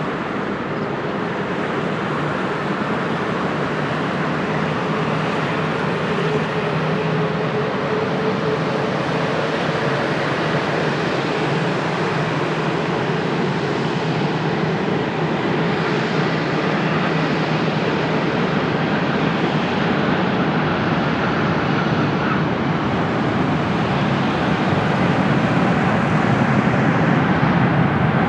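Jet airliner on landing approach: a steady rush of engine noise that grows slowly louder toward the end, with a faint low hum and a faint higher tone that drifts slightly lower a few seconds in.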